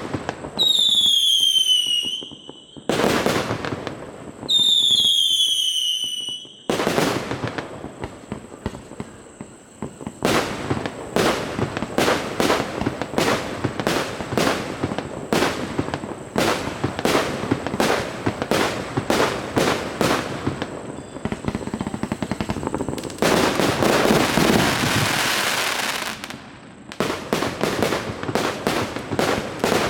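A 300-shot consumer firework cake firing: a rapid string of launch thumps and breaking reports, about two a second. Two falling whistles sound in the first several seconds, and a dense crackling stretch of about three seconds comes near the end.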